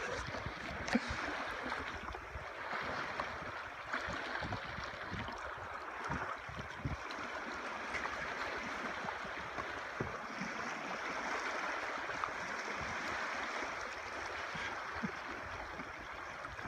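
Lake water washing and gurgling around a canoe and over shallow rock ledges, a steady rushing wash, with a few dull low bumps in the first several seconds.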